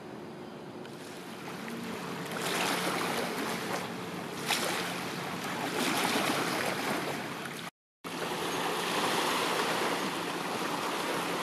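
Wind blowing outdoors, a rushing hiss that swells and eases in gusts, over a faint steady low hum. The sound drops out completely for an instant about two-thirds through.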